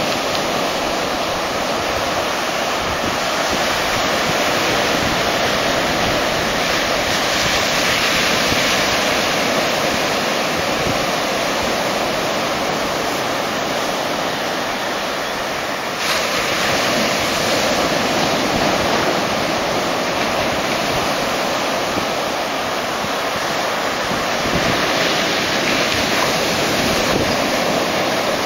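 Small ocean waves breaking close to shore and washing up the sand, a steady rushing surf that swells and eases as each wave comes in.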